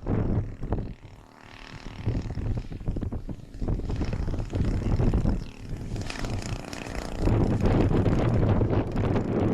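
Gusting wind buffeting the microphone over the buzz of a large RC plane's DL-50 single-cylinder two-stroke gas engine, its note shifting with throttle. The wind gets heavier from about seven seconds in.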